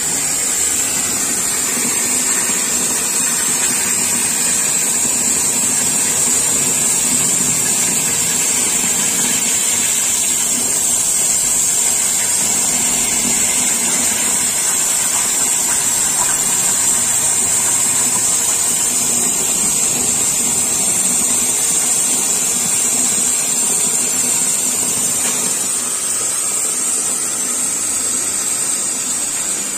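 Oxy-fuel cutting torch on a CNC flame-cutting machine, hissing steadily as it cuts through steel plate.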